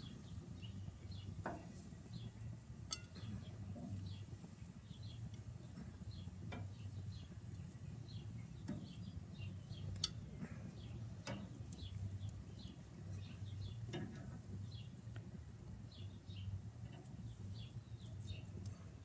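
A few sharp clicks and clinks of cooking utensils at the grill, the loudest about ten seconds in. Underneath are a steady low hum and small birds chirping.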